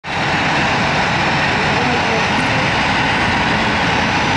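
Airbus A321's twin jet engines at takeoff power during the takeoff roll: a loud, steady rush of jet noise that sets in at once and holds even.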